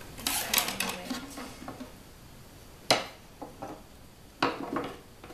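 Wooden dowels and metal pliers being picked up and set down on a wooden tabletop: a run of light clicks and clatters in the first two seconds, one sharp knock about three seconds in, then more clatter near the end.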